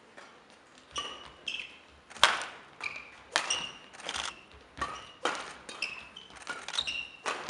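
A badminton rally: sharp racket strikes on the shuttlecock, several times, the loudest about two seconds in, with short high squeaks of court shoes on the hall floor between them.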